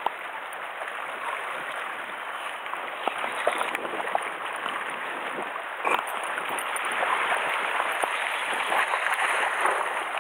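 Sea water washing over shore rocks: a steady rushing hiss with a few small ticks and one sharper knock about six seconds in.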